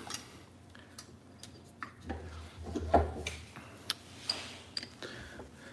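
Scattered, irregular light metallic clicks and clinks as the steel and friction plates of a Honda motorcycle clutch are worked loose from the clutch basket by hand and with needle-nose pliers.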